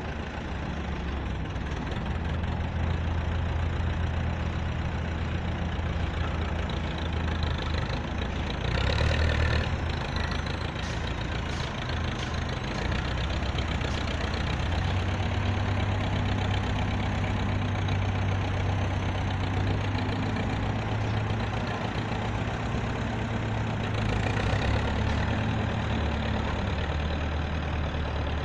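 Heavy construction machine's diesel engine running steadily. Its pitch rises a little about halfway through and falls back near the end, with a short rush of noise about a third of the way in.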